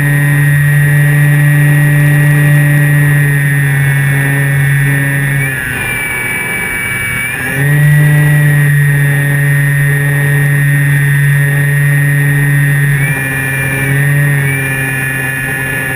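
Electric motor and propeller of a Flyzone Calypso RC plane, heard from a camera under its wing: a steady whine that drops away as the throttle is eased off about five and a half seconds in, comes back up about two seconds later, and shifts in pitch again near the end.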